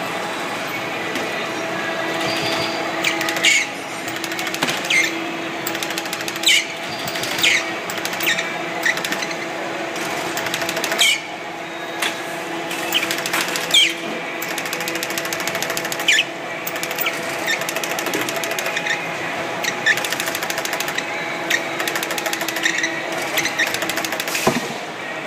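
Carton box stitching machine running with a steady hum, broken every one to two seconds by short, sharp squealing strokes. This is the abnormal noise of its drive belt slipping, a fault that makes the stitching wire jam as it is driven in.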